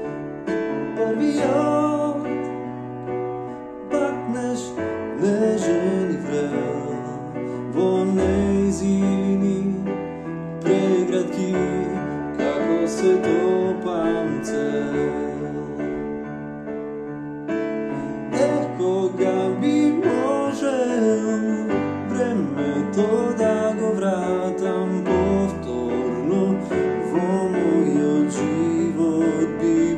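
A man singing while he plays an electronic keyboard. Held chords sit over low bass notes that change every few seconds.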